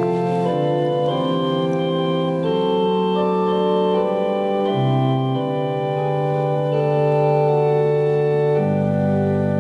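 Church pipe organ playing slow, sustained chords that change about once a second. A deep bass note comes in near the end and holds.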